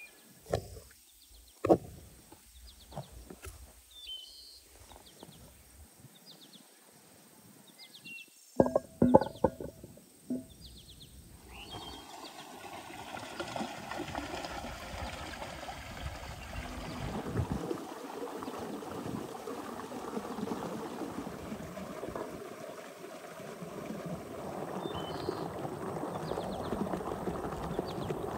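Potatoes being picked up and handled in loose soil, with a few sharp knocks and birds chirping. Then, from a little before halfway, water gushes steadily from a stone spring spout and splashes over potatoes being washed in an enamel bowl.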